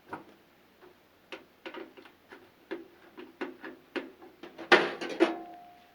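Irregular clicks and taps of a hand tool and metal parts as a microwave oven's casing is opened up. Near the end comes a louder clatter with a short metallic ring.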